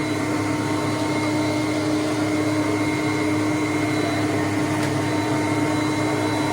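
Hoover Conquest upright vacuum cleaner running steadily, a constant motor hum with a steady tone over airflow noise.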